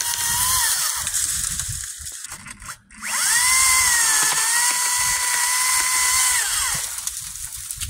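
Makita electric chainsaw whining at full speed in two runs: the first winds down about half a second in, the second starts about three seconds in, dips briefly in pitch, holds, then winds down near the end.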